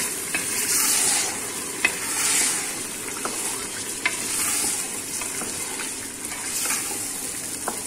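Raw beef mince sizzling in hot oil with onions and garlic-ginger paste while a wooden spoon stirs it round an aluminium pot: the sizzle swells with each stroke, and the spoon taps sharply against the pot a few times.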